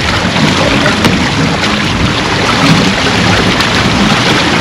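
Wind buffeting the microphone over water rushing along the hull of a sailboat under way: a loud, steady rush.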